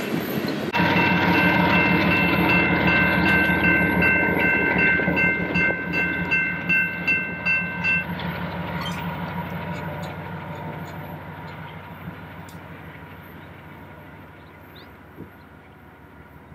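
Freight train passing with its rear pair of Kansas City Southern diesel locomotives running, a low engine hum under a steady high-pitched tone that pulses about twice a second. About halfway through the tone stops and the train sound fades away.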